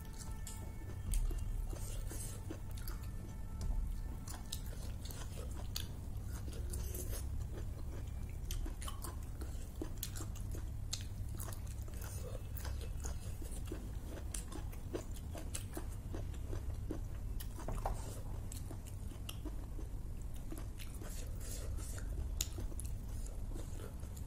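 A person chewing and biting with many wet mouth clicks and smacks, sucking curry off her fingers and biting into boiled green beans, over a low steady hum.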